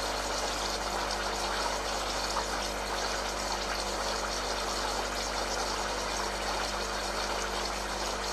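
Lelit PL81T espresso machine's pump running steadily with a low hum while hot water flows through the group head, as the brew water holds about 96 °C.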